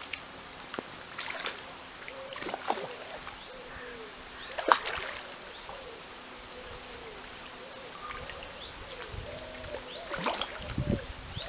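Water splashing in sudden, irregular bursts, loudest about five seconds in and again near the end: a hooked mirror carp thrashing at the surface as it is played towards the bank.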